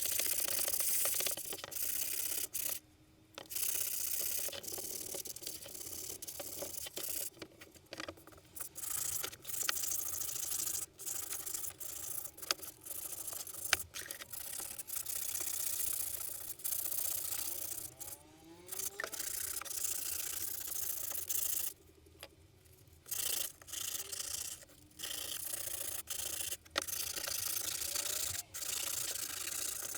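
Scratchy rubbing noise, like something being scrubbed or sanded against a surface, going on in stretches with a few short pauses and occasional sharp clicks.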